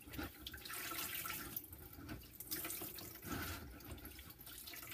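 Water trickling and dripping back into a bucket of rinse water as wet raw Romney fleece is squeezed down inside a slotted plastic basket.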